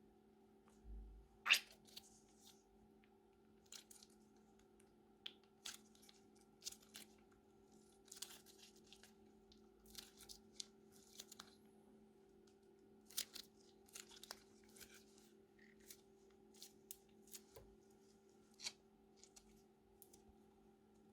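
Crunchy slime being handled, giving irregular sharp crackles and pops, the loudest about one and a half seconds in, over a faint steady hum.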